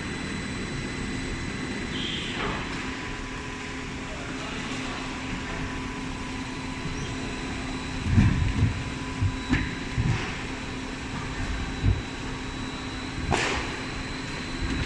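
Veneer rotary lathe machinery running with a steady motor hum and a thin whine, with several low thumps between about eight and twelve seconds in and a short clatter near the end.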